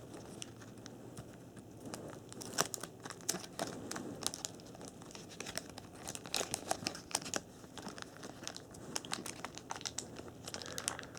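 Wax paper wrapper of a sealed baseball card pack crinkling and tearing as it is worked open by hand, in irregular small crackles; the wrapper is sealed tight.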